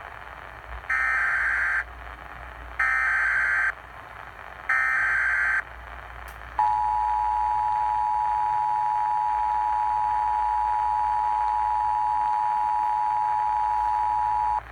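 Emergency Alert System tones over AM radio: three roughly one-second bursts of screeching SAME digital header data, then the steady two-tone attention signal held for about eight seconds, all over a constant radio hiss. The header and attention tone mark the start of an alert activation, here for a severe thunderstorm warning.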